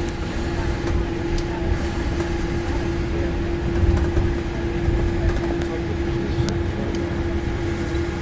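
Steady hum of a parked airliner cabin's ventilation and electrical systems, a low rumble under one held steady tone, with a few faint ticks.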